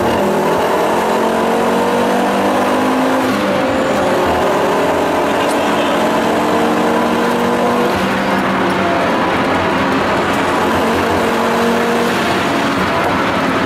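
Interior sound of a tuned Volvo 850 T5-R's turbocharged five-cylinder engine pulling at speed, with road noise. Its pitch climbs slowly and steps down a few times.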